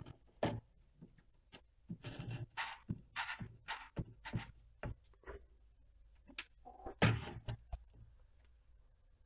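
Scattered clicks and light knocks of an Anet A6 3D printer's steel smooth rod and frame parts being handled during reassembly of the Y-axis, with the loudest knock about seven seconds in.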